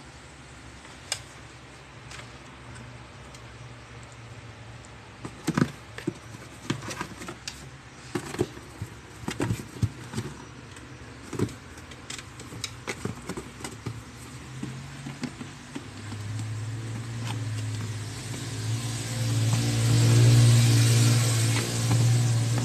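Scattered taps and scrapes of a cat's paws and head against a cardboard box flap. About two-thirds of the way in, a low engine hum starts and swells, loudest near the end.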